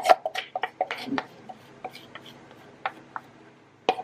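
Scattered light taps and clicks of a plastic measuring cup knocking against a stainless steel mixing bowl as flour is tipped in. They come in a quick cluster at first, then a few single taps.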